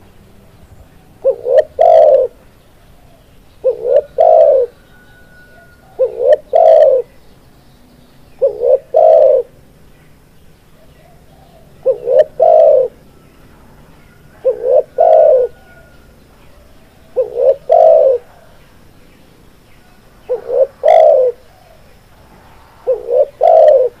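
Spotted dove cooing: a phrase of two or three quick notes ending in a longer coo, repeated nine times about every two and a half seconds.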